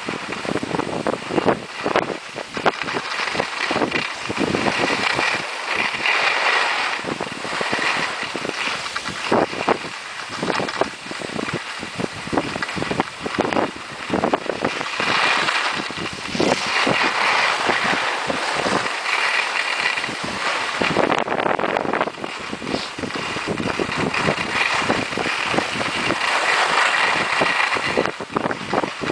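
Skis scraping over icy, hard-packed snow on a downhill run: a loud, rasping noise full of short crackles that swells and fades, mixed with wind on the microphone.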